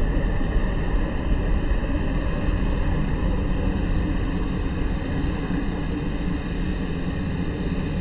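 Steady low rumbling background noise with no distinct calls or knocks.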